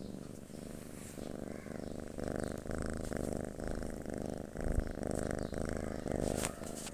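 Domestic cat purring with the microphone held right beside it: a low, steady rattle that comes in repeated phrases, with a brief soft bump a little past the middle.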